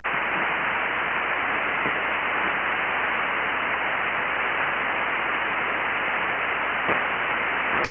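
Ham radio receiver on the 40-metre band, single sideband, with no signal on the frequency: a steady hiss of band noise with the top end cut off by the sideband filter. It cuts in suddenly and stops abruptly near the end.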